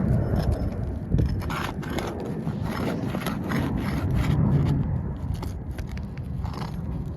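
Repeated scraping and crackling strokes on asphalt roof shingles, over a steady low rumble.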